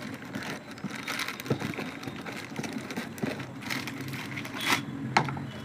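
Speaker packaging being handled and opened: irregular crinkling and rustling with a few sharp clicks, the loudest near the end.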